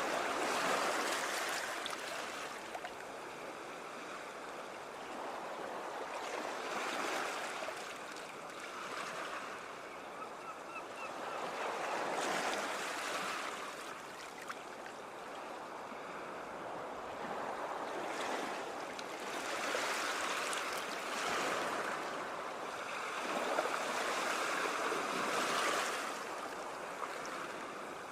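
Ocean waves breaking and washing ashore, the surf swelling and easing in surges every five to seven seconds.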